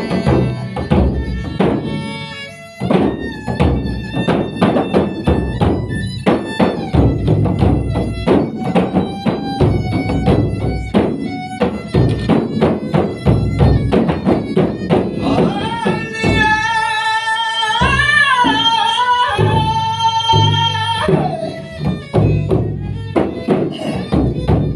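Malay dendang folk music: hand drums beat a steady, quick rhythm under a held melody. About two-thirds of the way through, a higher wavering melody line comes to the front for a few seconds.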